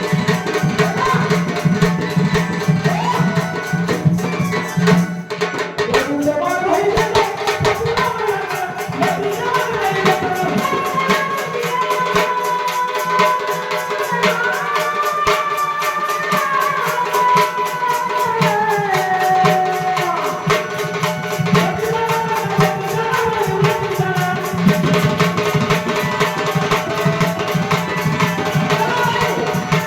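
Indian devotional music: tabla playing a fast, steady rhythm under a gliding melody, with a steady low drone.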